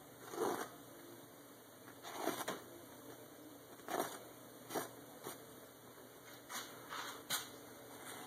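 Paper towel rustling and crackling softly as it is held up and sliced unsupported with a sharp knife blade, in a series of short, irregular bursts.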